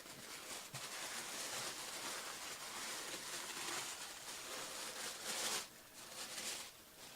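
Hands rustling and crinkling the packaging of a sports card pack as it is opened, a steady rustle that grows louder about five seconds in, then dies down.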